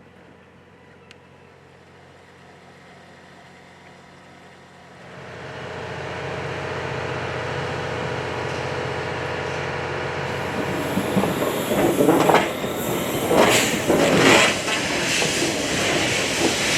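Steam-hauled train, D51 steam locomotive with its coaches, approaching and running by: faint at first, a steady rolling noise builds about five seconds in, and from about eleven seconds it grows louder with irregular heavy knocks and hissing rushes.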